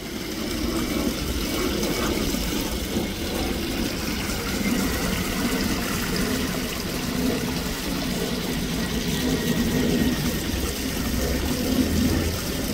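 Pond water steadily splashing and gurgling where a pumped inflow churns the koi pond's surface.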